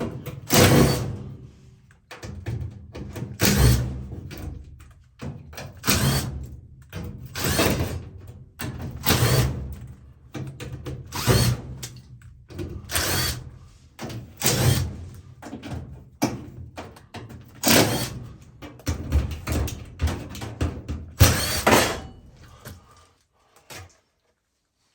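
Tools working on an oil furnace's cabinet, likely removing its side panel: a run of short mechanical clatters and knocks, one every second or two, stopping near the end.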